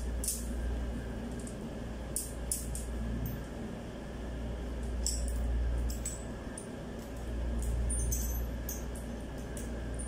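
Light metallic clicks and taps of a copper-tube flaring tool's clamping bar being handled as a copper pipe is set into one of its ports, a few scattered clicks over a steady low hum.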